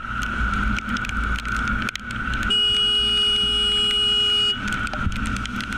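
A vehicle horn sounds one steady blast, held for about two seconds from about two and a half seconds in: a protest honk at a driver. Under it is the steady rumble of wind and road noise on a riding motorcycle.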